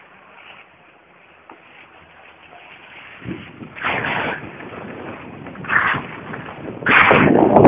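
Wind rushing over the microphone of a camera carried by a skier going downhill. It is faint at first, then comes in louder gusts from about three seconds in, and is loudest near the end.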